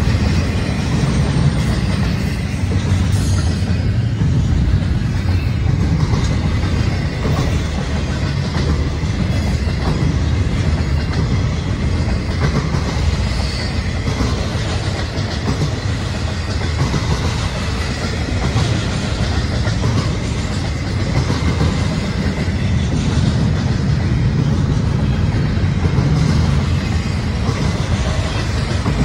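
Double-stack intermodal well cars of a freight train rolling past at trackside. Steel wheels on the rails make a steady, loud rumble, with repeated clicks as the wheel sets go by.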